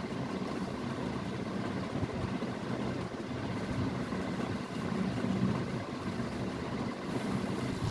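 Steady low mechanical hum of a running motor, with cloth being shifted and rustled by hand.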